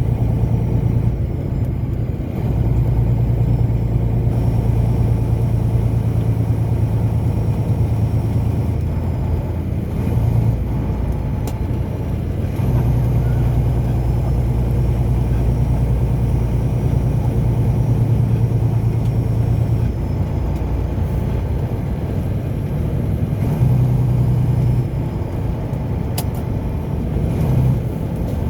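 Car engine and tyre noise droning steadily from inside the cabin while driving, the engine pitch shifting a little with speed. There are two brief clicks, one near the middle and one near the end.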